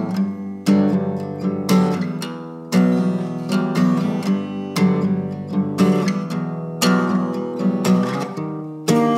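Acoustic guitar strumming chords in a steady rhythm, each strum ringing on into the next.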